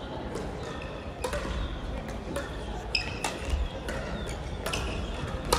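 Crossminton rackets striking the speeder: a run of sharp, irregular clicks in a large hall, with a short squeak about three seconds in and a few low thuds.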